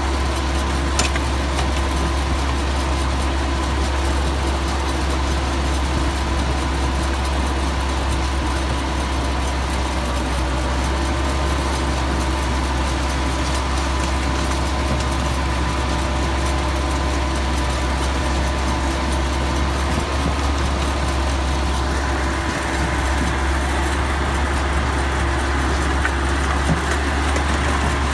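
Ride-on miniature park train running along its track, its small locomotive engine humming steadily under the rolling of the wheels. About twenty-two seconds in, a louder rushing noise comes in over it.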